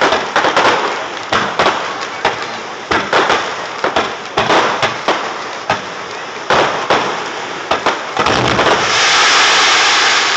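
Aerial fireworks going off: a quick, irregular string of shell bursts and pops. About eight seconds in, they give way to a dense, steady crackling hiss.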